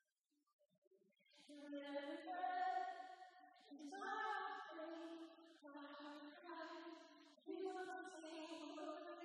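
A woman sings a slow worship song into a microphone in long held notes, starting after about a second of near silence.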